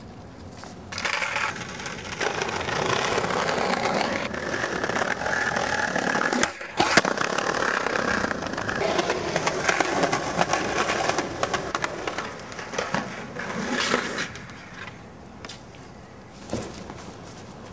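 Skateboard wheels rolling over rough pavement: a loud, gritty rolling noise that starts about a second in, drops out briefly about six seconds in, and dies away near fourteen seconds, leaving a few light knocks.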